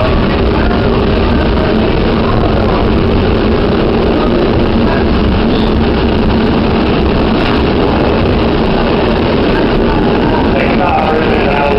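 Staten Island Railway electric train running at speed, heard from inside the car: a steady, loud rumble of wheels on rail and running gear.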